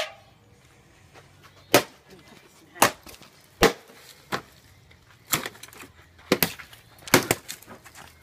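Machete hacking at a refrigerator's plastic casing: a series of about eight sharp chopping strikes, roughly one a second, spaced unevenly.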